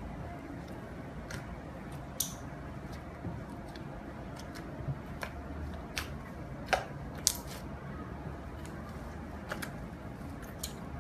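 Slime being squeezed and worked by hand, with scattered sharp sticky clicks and pops over a steady low background hum.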